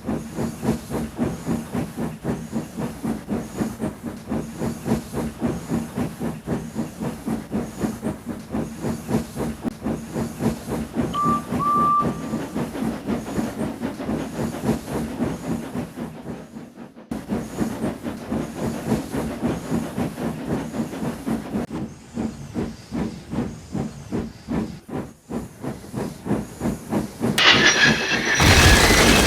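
Steam train chuffing rhythmically over a low hum, with a brief two-note whistle toot about a third of the way in. Near the end a sudden loud, noisy burst cuts in, like a crash.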